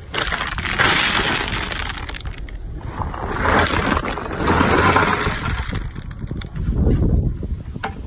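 A heap of in-shell walnuts tumbling and clattering against one another, in three surges: about a second in, around the middle, and near the end.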